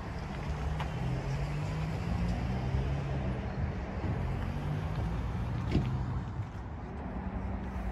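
Diesel engine of demolition-site plant running steadily with a low, unsteady hum, with one sharp knock about six seconds in.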